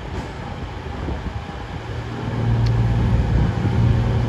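CrossCountry Class 220 Voyager diesel multiple unit arriving slowly at the platform, its underfloor Cummins diesel engines humming steadily. The hum grows louder about two seconds in as the train draws closer.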